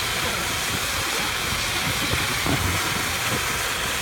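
Lawn sprinkler spraying water up against the underside of a trampoline mat, a steady hiss, with irregular low thumps of bodies and bare feet on the wet mat.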